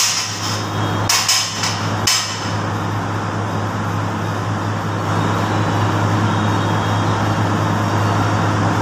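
Stick (arc) welding on a steel hand-trolley frame: short crackling bursts of the arc at the start, about a second in, and again at about two seconds. A steady low hum runs underneath.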